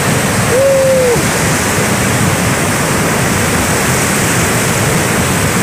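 Semeru lahar flood, a fast torrent of volcanic mud, sand and boulders, rushing loudly and steadily down the river channel. A single short shout is heard about half a second in.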